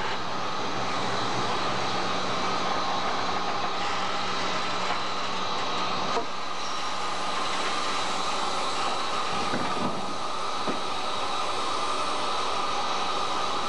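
DB class 23 steam locomotive 23 105 heard as a steady rumble and hiss, with a low hum that stops abruptly about six seconds in.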